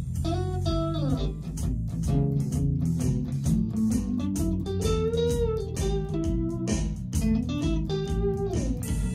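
A band playing a blues jam: electric guitar with bending notes over a bass guitar line and a steady drum beat.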